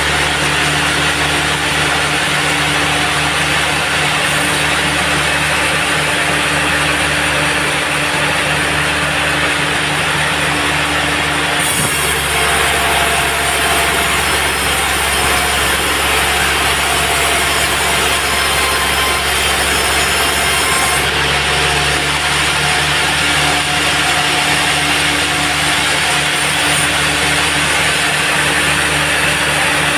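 Band sawmill running and sawing through a teak log, a dense rasping hiss over a steady motor hum. The cutting sound changes abruptly about twelve seconds in and again around twenty-one seconds.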